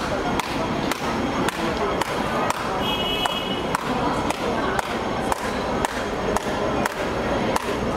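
Steady, rapid slaps of a shoe beating a paper effigy on the ground, roughly two to three strikes a second, the rhythmic pounding of a villain-hitting curse ritual, over a constant hum of traffic.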